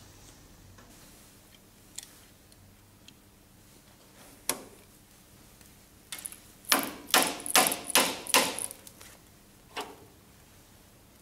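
Hand tools clicking and clinking against the brass housing of a water-jetting machine's impeller pump while the rubber impeller is taken out. A few single clicks, and about halfway through a quick run of about five sharp metallic clinks.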